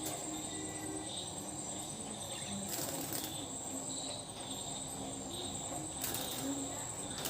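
A steady, high insect chorus like crickets chirping, with two brief rustling bursts about three and six seconds in from lovebirds fluttering their wings in their cage.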